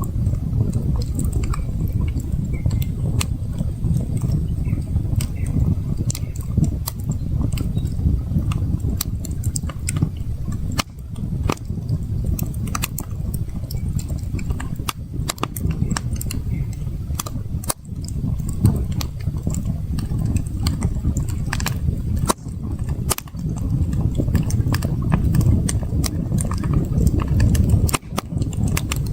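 Wood campfire crackling, with frequent irregular sharp pops and snaps over a steady low rushing sound.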